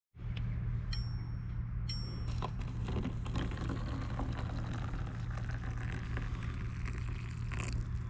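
Tea being poured from a stainless steel pot into paper cups, over a steady low hum. Two short high ringing tones sound about a second apart near the start.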